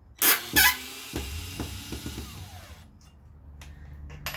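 Two sharp clattering knocks, then a cordless drill runs for about two seconds and stops suddenly.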